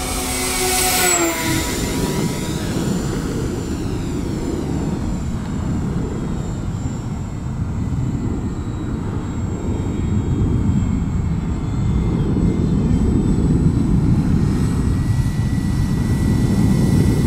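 Twinstar RC plane with twin electric motors flying past: the high motor and propeller whine drops sharply in pitch as it passes about a second in, then a steady low noise with faint motor tones as it circles, and the whine builds again near the end as it comes round for another pass.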